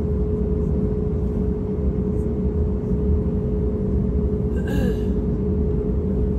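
Steady cabin noise inside an Airbus A321neo airliner: a low rumble with a steady hum. A brief higher-pitched sound cuts in about four and a half seconds in.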